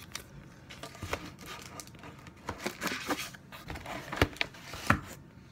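Plastic trading-card holders and sleeves being handled: rustling and crinkling with scattered small clicks. Two sharper clicks come near the end.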